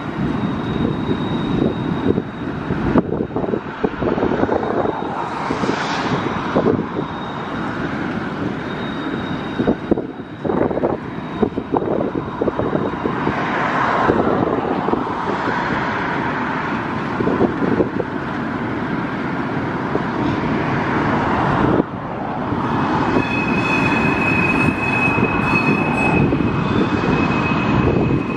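Freight train of boxcars rolling across a steel truss bridge: a steady rumble with repeated clacking of wheels over rail joints. About two-thirds of the way through, a thin, steady high squeal from the wheels sets in and holds.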